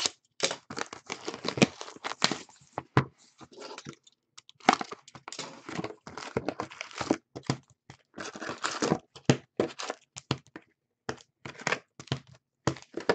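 Plastic shrink wrap on a hockey card box being slit and torn off, then the cardboard box opened and its foil card packs crinkling and clacking as they are pulled out and stacked on a wooden table: a long run of irregular crackles and taps, with a short pause about four seconds in.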